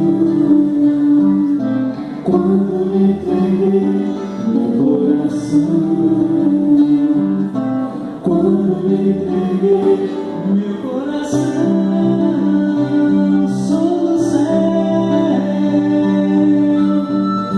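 A man and a woman singing a Portuguese-language worship song as a duet, accompanied by guitar.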